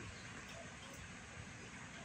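Faint steady background noise with no distinct events.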